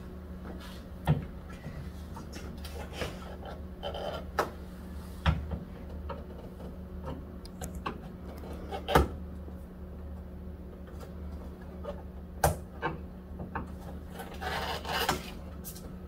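A screwdriver prying and scraping at the styrofoam cover over a refrigerator's air damper: scattered knocks and clicks, sharpest about 1, 5, 9 and 12.5 seconds in, with rubbing and scraping between, over a steady low hum.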